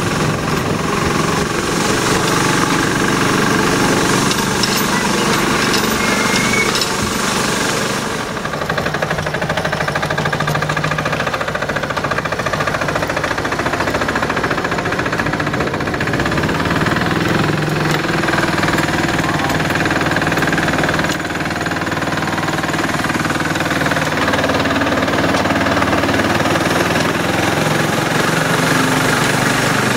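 Ride-on miniature railway locomotive running along the track, its small engine running steadily with a rapid rattle.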